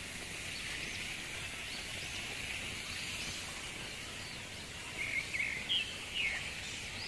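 Birds chirping over a steady high-pitched hiss of outdoor ambience, with a louder run of short chirps about five seconds in.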